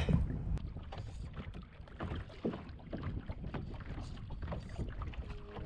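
Water splashing and dripping around a small paddled boat in irregular small splashes, over a low wind rumble on the microphone. Music with steady held notes comes in near the end.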